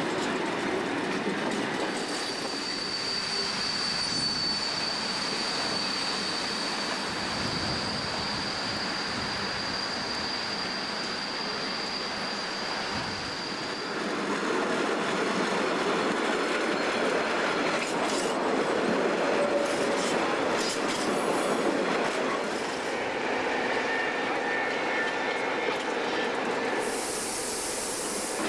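Freight wagons rolling off the hump of a railway shunting yard, wheels clattering over rail joints and points. A long, high, steady wheel squeal starts about two seconds in and lasts some twelve seconds; a fainter squeal follows later, and a short burst of hiss comes near the end.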